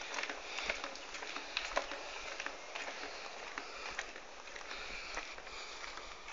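Footsteps on a concrete walkway, with light scuffs and taps at an irregular walking pace over a faint steady hiss.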